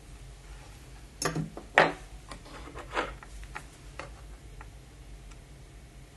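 Small hard plastic clicks and taps from model parts and tools being handled and set down on a workbench. A few sharp clicks come in quick succession a little after the first second, with another about three seconds in and lighter ticks after it, over a low room hum.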